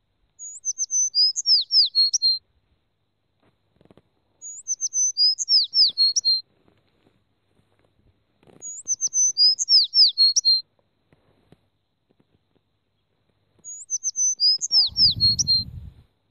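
A songbird's chirping song: the same short phrase of high chirps and falling whistles, repeated four times about every four seconds. A brief low rustle comes near the end.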